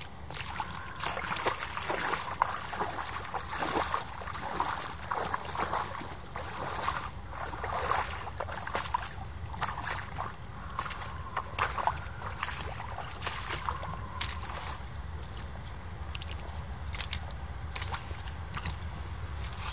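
Rubber boots squelching and splashing through a muddy puddle, in irregular steps with sloshing water, busier in the first part and thinning out later.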